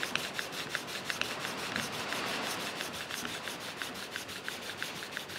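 Steel card scraper, cut from an old handsaw blade, rubbed edge-down back and forth on a 400-grit diamond sharpening stone against a wooden guide block. It makes a gritty rasping in quick, even strokes as the filed edge is polished flat and square.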